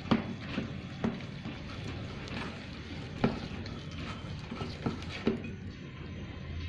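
Chicken pieces being stirred into a wet marinade in a bowl: steady mixing noise with several sharp knocks against the bowl.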